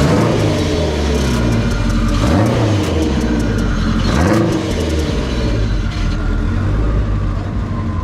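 Straight-piped, big-turbo Dodge Neon SRT-4 turbocharged 2.4-litre four-cylinder running at a loud, uneven idle and revved in two short blips, about two and a half and four seconds in. Rapid sharp crackles are heard in the first few seconds.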